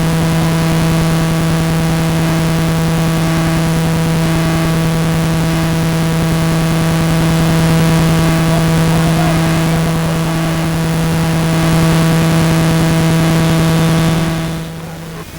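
A loud, steady buzz at one low pitch with many overtones, starting suddenly and dropping away near the end.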